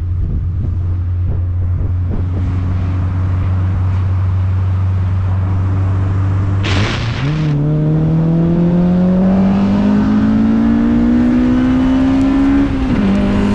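Honda Civic hatchback engine and exhaust, heard from outside the moving car. The engine holds a steady low note for several seconds. About seven seconds in there is a brief hiss, and the note jumps and then climbs steadily as the car accelerates through a gear. It drops once near the end on an upshift.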